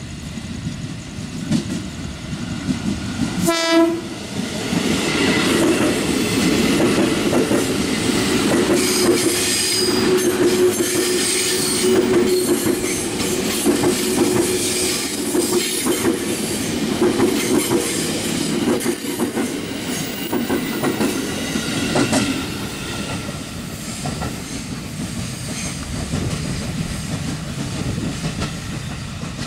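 KRL Commuter Line electric train sounds one short horn blast about three seconds in. It then runs past close by with a steady hum and running noise, loud for about a quarter-minute before dropping back.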